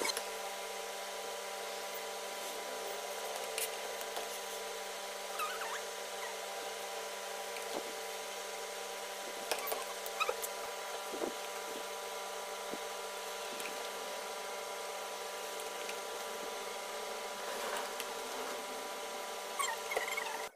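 A steady machine hum made of many even tones, like a small electric motor running, with a few light taps and scrapes over it.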